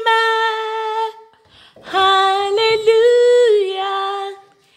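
A woman singing a gospel praise unaccompanied, "Amen" on held notes. A short pause about a second in, then a longer sung phrase that steps up and back down in pitch.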